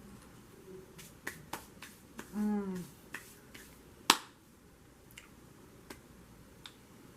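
Mouth noises while eating: a series of short, sharp smacking clicks, a brief hummed "mm" about two and a half seconds in, and one loud click a little after four seconds.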